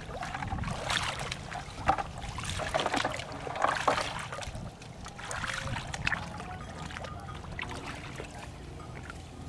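Footsteps wading through shallow, grassy floodwater, with irregular splashes and sloshes. The splashing dies down in the last few seconds as the walker leaves the water.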